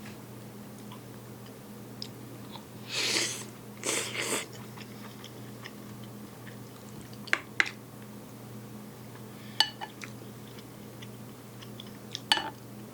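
A person eating tenshindon close to the microphone: chewing, with two short loud mouthfuls a little after three and four seconds in, and a few sharp clicks of a utensil against the bowl.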